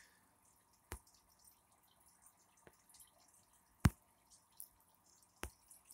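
A handful of short, sharp taps and clicks from fingers handling a phone, coming at uneven intervals, with the loudest a little before four seconds in. Between them there is near silence.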